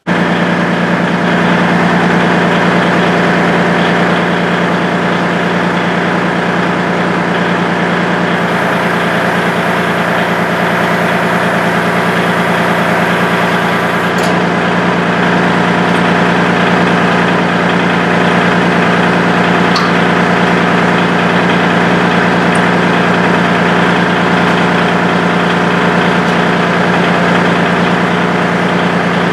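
Kubota L2501 tractor's three-cylinder diesel engine idling steadily.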